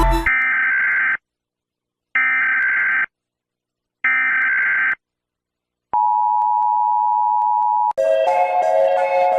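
Emergency Alert System alarm: three SAME header bursts, each a harsh buzzing screech of about a second with a second of silence between, then the steady two-tone EAS attention signal for about two seconds. Music cuts in near the end.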